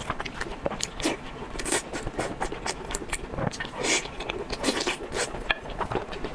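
Close-up eating sounds: a stream of irregular crunchy crackles and scrapes of chewing.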